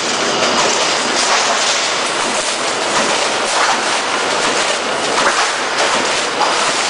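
Rotary shear cut-to-length line running, thin sheet metal feeding through the servo-driven shear: a steady, loud mechanical clatter with irregular sharp clicks.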